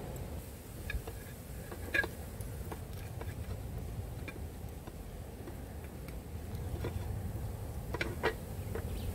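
Knife cutting eel into chunks on a metal pot lid: scattered sharp clicks of the blade striking the lid, the loudest about two seconds in and a quick pair near the end, over a low steady rumble.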